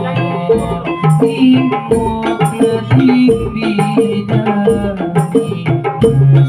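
Patrol music: a percussion ensemble playing pitched knocked percussion and drums in a fast, steady rhythm.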